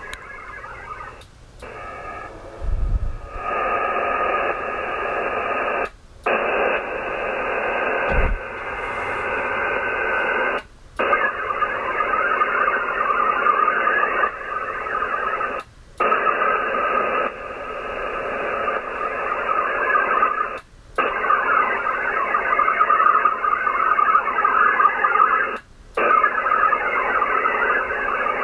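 VARA HF digital modem signal from an HF transceiver's speaker during a Winlink connection: a dense, hissing band of many steady tones, in runs of about five seconds broken by short gaps as the stations take turns sending data. The link is poor, passing only about 80 bits per second.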